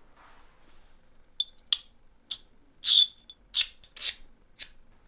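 Metal combination rings of a handmade stainless steel combination-lock mini safe clicking and clinking against the steel core as they are fitted and handled: about seven sharp metallic clicks, after a soft rustle of handling.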